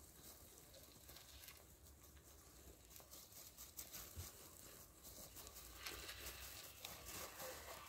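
Faint crackling and rustling of wood-shaving bedding with small scattered clicks as baby hamsters shift in it, busier in the second half.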